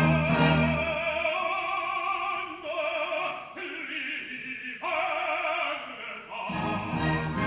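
Baritone and bass opera singers in a duet, singing with wide vibrato over light orchestral accompaniment. About six and a half seconds in, the full orchestra comes back in loudly.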